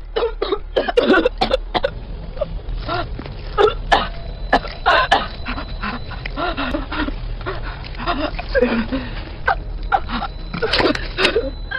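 A woman coughing, gagging and retching in short, irregular bursts as she pulls a strand of hair out of her throat.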